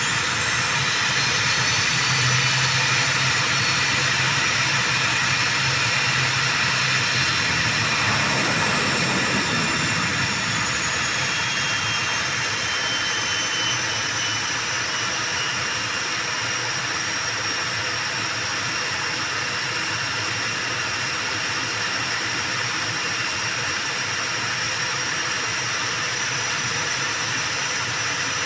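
ATR 72-600's Pratt & Whitney PW127 turboprop engines running, a steady rushing noise with high turbine whines that slowly drift down in pitch. A low hum in the first seconds fades out about a third of the way in.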